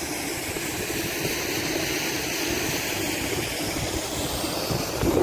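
Wind buffeting the microphone outdoors, a steady low rumbling flutter with a rushing hiss over it.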